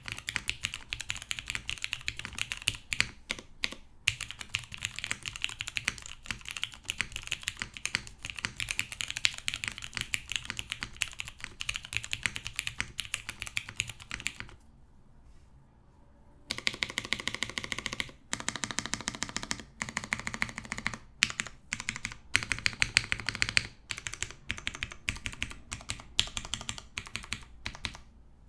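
Mechanical keyboard typing on a TGR Jane V2 CE: lubed vintage Cherry MX Brown switches on an aluminium plate, with Cherry-profile POM keycaps. Keystrokes come in a dense run, stop for about two seconds around the middle, then start again in quicker, more broken-up runs.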